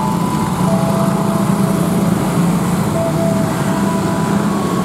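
Idling engines of motorcycles and a minibus waiting close by, a steady low hum of road traffic, with faint steady tones held above it.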